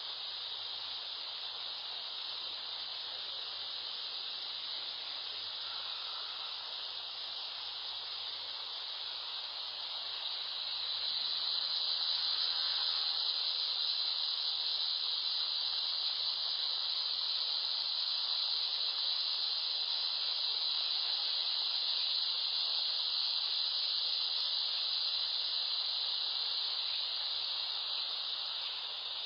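A steady high-pitched hiss that swells louder about ten seconds in and holds there.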